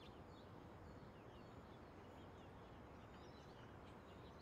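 Near-silent outdoor ambience with faint small birds chirping: scattered short, high chirps over a low, steady background hum.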